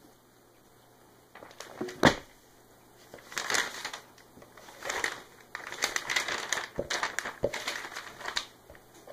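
Pages of a thick textbook flipped through fast by hand in several bursts, paper rustling and slapping, after a single thump about two seconds in.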